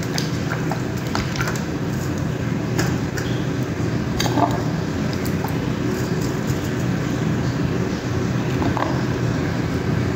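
Cut potato pieces being washed by hand in water in a steel plate: small splashes and scattered light clinks of potato against the metal, over a steady low hum.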